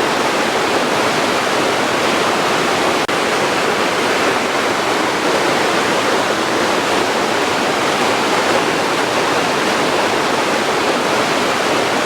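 Water rushing steadily, a dense even roar with no break except a momentary dip about three seconds in.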